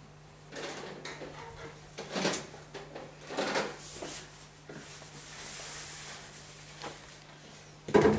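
Scattered knocks, clunks and rustles of things being handled, with a louder clatter near the end, over a faint steady low hum.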